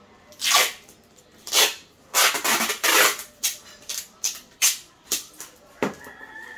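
Clear packing tape pulled off its roll and wrapped around a rolled bundle of clothing: a series of loud ripping pulls, a longer one about two seconds in, then shorter, quicker ones.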